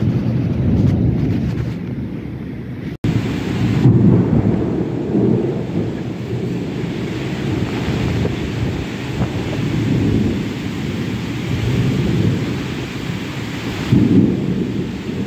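Heavy rain in a strong, gusting wind: a steady hiss of downpour under low rumbling surges as the gusts buffet the microphone. The sound cuts out for an instant about three seconds in.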